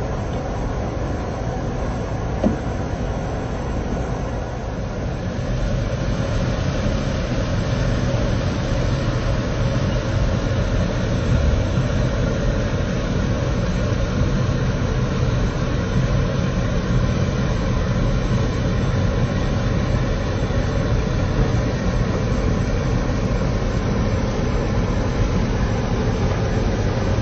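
Heavy machinery running steadily, a continuous low rumble with a hiss above it, growing louder about five seconds in, with a single short knock near the start.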